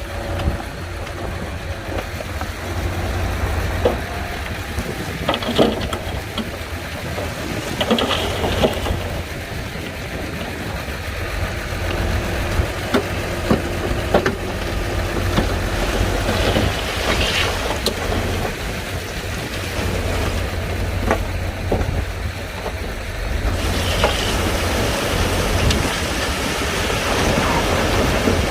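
Komatsu D41P crawler bulldozer working, its diesel engine giving a steady low rumble, with scattered clanks and knocks.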